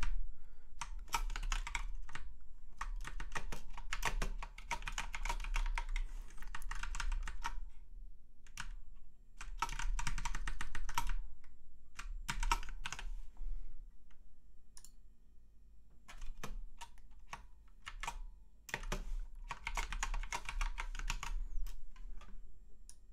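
Typing on a computer keyboard: several quick runs of keystrokes separated by short pauses, with scattered single key clicks between them.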